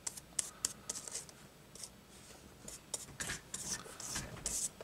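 Small applicator brush spreading contact cement over a strip of wood veneer: short brush strokes, sparse at first, then longer and louder from about three seconds in.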